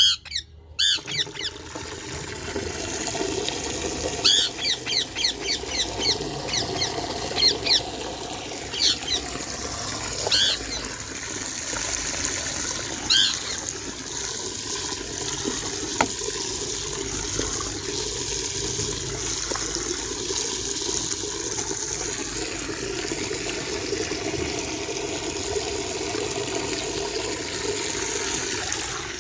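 Water running steadily from a tap into a bucket as it fills. A bird chirps in short quick runs over it for a while, then stops.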